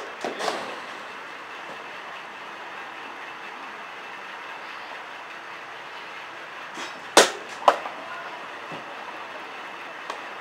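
Softball batting practice: two sharp knocks about seven seconds in, half a second apart, from a bat striking a softball, over a steady background hiss.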